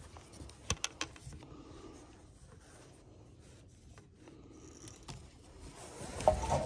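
Close handling noise of fishing gear and a wooden landing net: a few sharp clicks about a second in, then soft rubbing and scraping that grows louder near the end.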